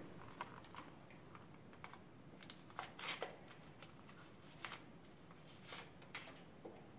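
Small paper packet being handled and torn open by hand: a series of short crinkling, rustling clicks, loudest about three seconds in, with a few more near the end.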